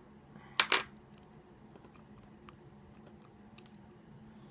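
Two sharp metal clicks just over half a second in, then a few faint ticks: small tools working a pin loose in an ASSA 700 lock core being taken apart.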